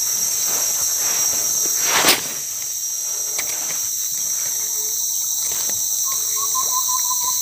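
A steady, high-pitched chorus of forest insects at several pitches at once. A short, sharp noise cuts through it about two seconds in.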